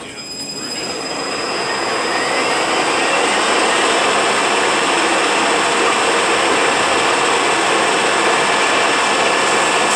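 Rebuilt Eaton Fuller RTLO-18918B 18-speed truck transmission spinning on a test dyno: it winds up over the first two or three seconds with a rising whine, then runs at a steady speed with a steady whine.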